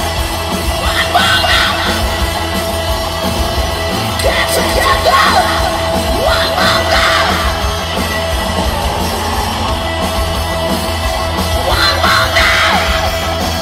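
Punk rock band playing live at full volume, with the singer yelling into the microphone in several short outbursts over the steady band sound.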